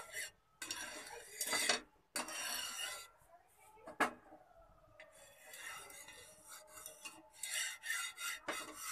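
A flat spatula scraping over a tawa (flat griddle) in repeated strokes, spreading oil across the hot pan. There is one sharp clink about four seconds in.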